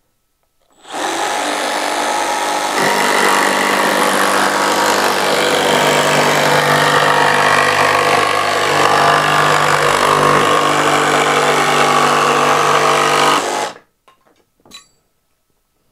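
Makita cordless jigsaw running and cutting a curve through a plywood board, guided round a circle by its compass-point guide rule. It starts about a second in, gets louder a couple of seconds later, runs steadily, and stops abruptly shortly before the end.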